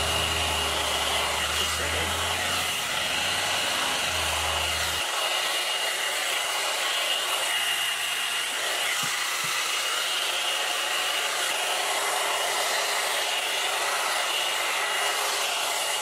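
Amika hot-air blow dryer brush running on its high heat setting while being drawn through hair, a steady rush of air with a high whine from its fan motor. A low hum underneath drops out about five seconds in.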